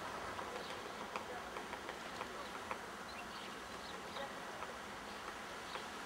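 Great spotted woodpecker pecking at a tree: sharp, irregular single taps, roughly one a second, over a steady buzzing hum.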